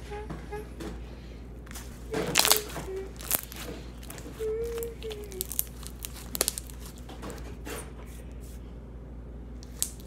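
Slime being stretched, squeezed and pulled apart by hand, giving a run of sharp wet pops and crackles, loudest about two to three seconds in.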